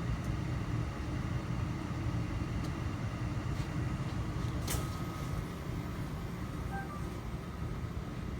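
Steady low hum and rumble of automated factory machinery at a CNC gaging station. A short, sharp noise about halfway through, then a few faint short beeps.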